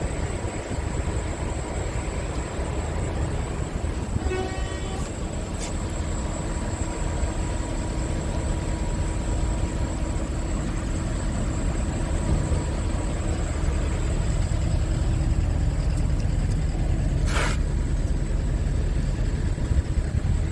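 Steady low rumble with no speech, with a short pitched toot about four seconds in and a brief burst of hiss near the end.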